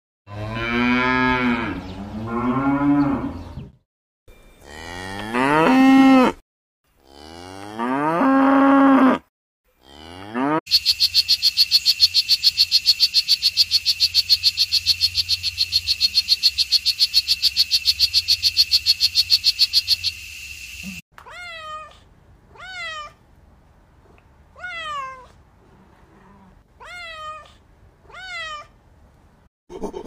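Holstein cattle mooing, several long moos. Then a strawberry poison dart frog calls for about ten seconds, a rapid, steady train of evenly spaced chirps. Then about seven short calls that each fall in pitch.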